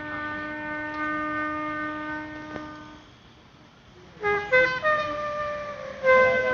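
Military signal bugle sounding a call: one long held note, then after a short pause a quick run of short notes and two longer notes near the end.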